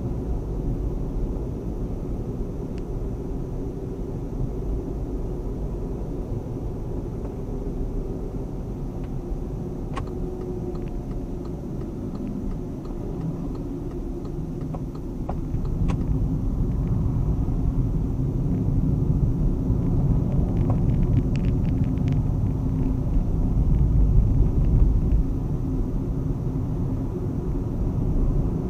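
Car driving on a road, heard from inside the cabin: a steady low rumble of engine and tyre noise that grows louder about halfway through, with a few light clicks.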